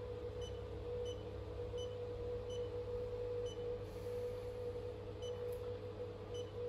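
Short, high electronic key beeps from a corrosion tester's touch screen, about six at uneven intervals as keys are pressed, over a steady hum.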